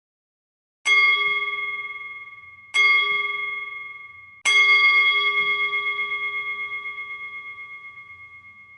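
Hindu temple bell struck three times, about two seconds apart, each stroke ringing on in a clear, wavering tone; the third is left to ring out and fade until it cuts off suddenly.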